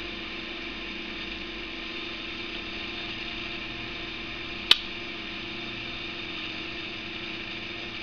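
A single sharp metallic click about halfway through as the folding knife's blade, spinning on its ball-bearing pivot, snaps open and locks on the liner lock. Under it is a steady faint hiss and hum.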